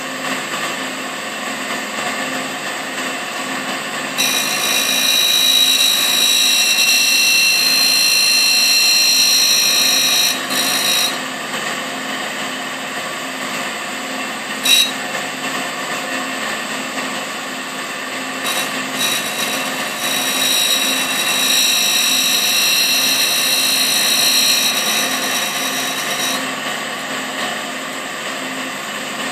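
Tool and cutter grinder, a Russian clone of a Cincinnati No. 2, running with a steady motor hum while an end mill's flutes are sharpened on its wheel. Twice, about 4 and 20 seconds in, the cutter is drawn across the wheel for roughly six seconds, bringing a louder, high-pitched hissing grind.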